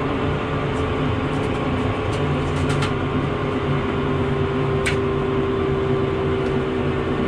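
Bell UH-1 Huey turbine helicopter running on the ground, heard from inside the cockpit: a steady hum with a few faint clicks.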